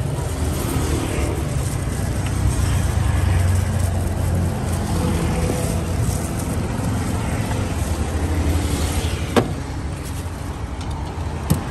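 Street traffic noise, a steady low engine rumble from passing or idling vehicles. A sharp click comes about nine seconds in and another near the end.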